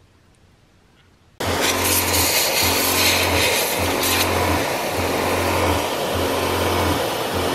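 Ironton motorized sprayer switching on suddenly about a second and a half in and misting: a loud hiss of spraying water over the pump's low hum, which breaks off briefly every second or so.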